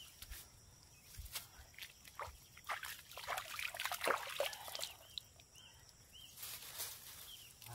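Swamp water splashing and trickling as hands scoop it up and pour it over the head and body, in a run of irregular splashes through the middle. A faint high chirp repeats about twice a second in the background.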